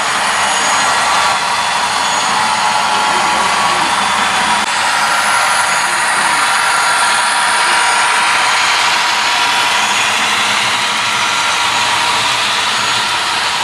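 Model trains running on a layout: a steady mechanical rush of model locomotives and freight cars rolling along the track, with a faint steady whine.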